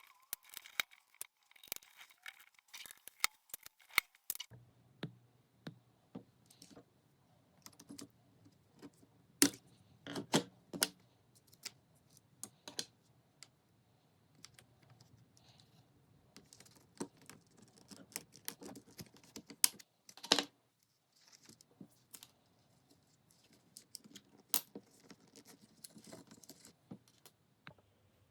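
Plastic keycaps of an Amiga keyboard being worked on by hand: irregular clicks and taps, with a few sharper snaps around ten and twenty seconds in. A faint low hum comes in about four seconds in.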